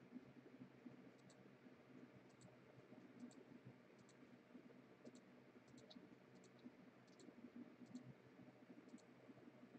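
Near silence with faint, sharp clicks, mostly in close pairs, about one pair a second.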